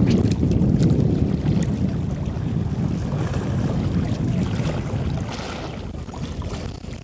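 Wind buffeting the microphone over open sea: a low, blustery rumble that eases off over the last few seconds.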